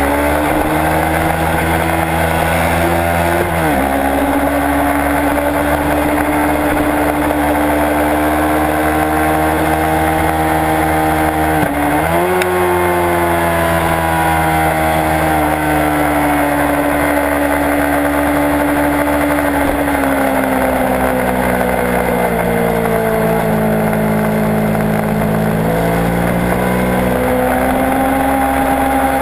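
Kawasaki Ninja 650 parallel-twin engine pulling hard on track, its pitch climbing and falling as the rider works the throttle. It changes gear about four seconds in and again about twelve seconds in, over a steady rush of wind.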